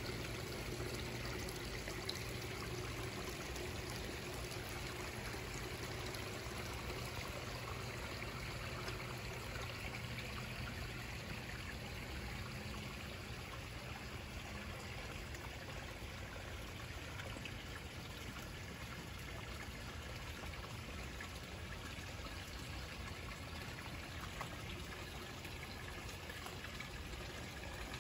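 Water trickling and pouring steadily into a small koi pond.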